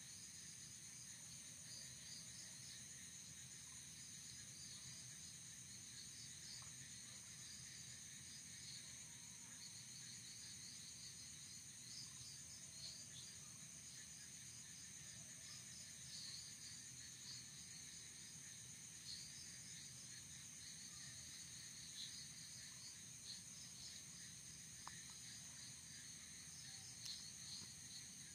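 Faint night insect chorus: a steady high trill with many short, irregular chirps over it, and a low steady hum underneath.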